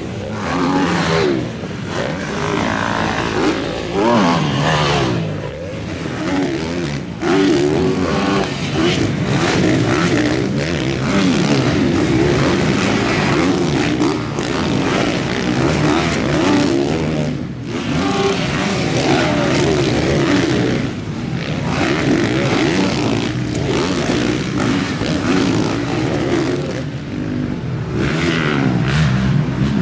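Several motocross bikes racing, their engines revving hard over and over, one after another and overlapping, the pitch rising and falling as riders climb and jump.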